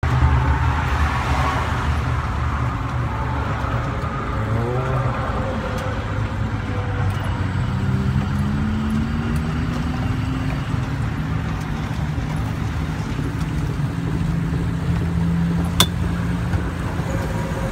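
ELF velomobile rolling along a road, heard from inside its shell: a steady low rumble of tyres and wind. About eight seconds in a faint tone glides upward, and there is a single sharp click near the end.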